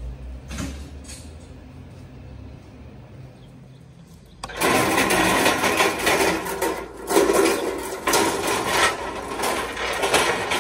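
A low hum, then from about four and a half seconds in a loud, uneven clattering rattle of metal U-boat carts being pulled and rolled across pavement.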